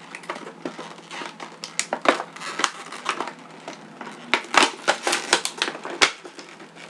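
Scissors cutting and crackling at stiff plastic packaging, a run of irregular snaps and clicks, busiest in the second half.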